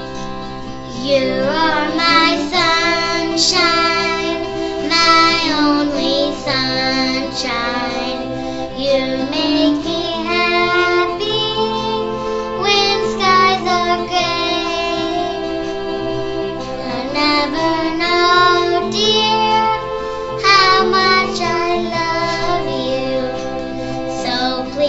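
A young girl singing a song in a sustained, wavering melody over steady instrumental accompaniment, with acoustic guitar strumming leading in.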